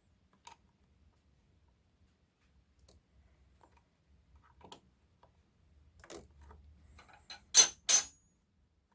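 A few faint clicks and taps of small things being handled, then two sharp, ringing clinks close together near the end, like a small metal tool being knocked or set down.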